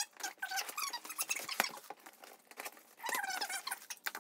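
Packing tape being peeled off a cardboard box, with short, wavering, high squeals and crackling as it comes away.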